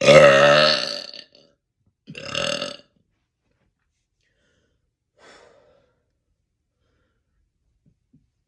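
Three burps: a long, loud, pitched one at the start, a shorter one about two seconds in, and a faint one about five seconds in.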